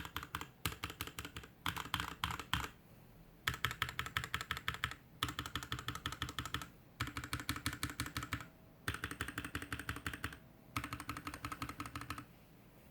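Mechanical keyboard with linear switches (Tecsee Blue Velvet) and DSA keycaps, typed on in quick runs of keystrokes across letter and modifier keys, with short pauses between runs, the board sitting on a desk mat.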